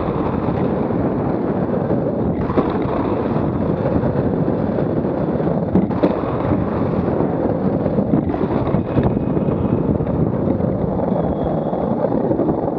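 Wind buffeting the microphone over the rumble of a Buggy Rollin wheel suit's wheels rolling on asphalt at speed, with a few short knocks along the way.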